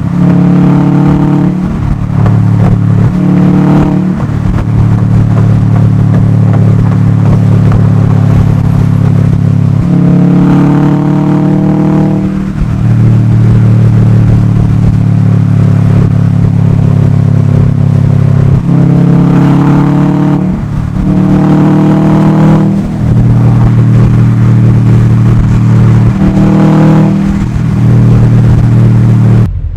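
2020 Subaru WRX STI's turbocharged flat-four engine driven hard through the gears, its pitch climbing under acceleration and stepping down at each shift, several times over. The sound cuts off suddenly at the very end.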